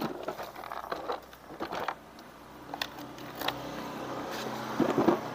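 Scattered clicks and knocks of small metal parts and tools being handled on a scooter, with a louder clatter near the end. A steady low hum comes up about halfway through and carries on under the clatter.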